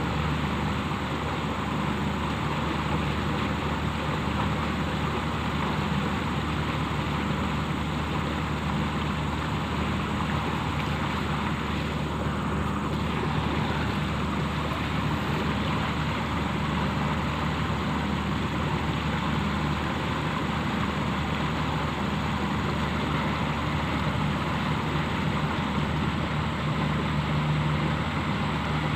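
Steady drone of a motor running at constant speed: a low hum under an even hiss.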